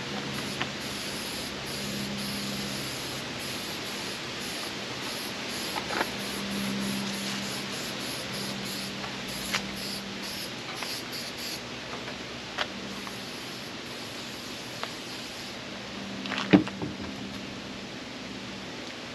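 Aerosol can of wax and tar remover spraying onto a painted steel car fender: a steady hiss, broken by a few sharp knocks, the loudest about three-quarters of the way through.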